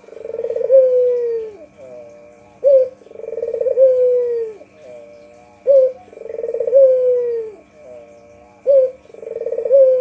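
White puter (domestic ringneck dove) cooing: a short sharp note, then a rolling purr that eases into a long falling coo, repeated about every three seconds, three times in all. A faint steady hum runs underneath.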